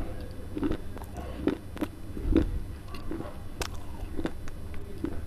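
Baked clay being crunched and chewed right at a close-held microphone: a run of sharp crunches, about two a second, each with a dull thud.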